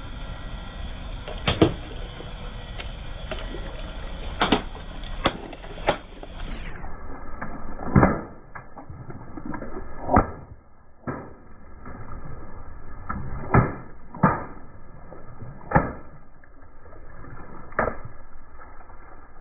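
Water balloons bursting one by one under a slowly rolling car tyre: about a dozen sharp pops with splashing, irregularly spaced, over the steady low rumble of the car. The pops after about seven seconds sound duller and more muffled.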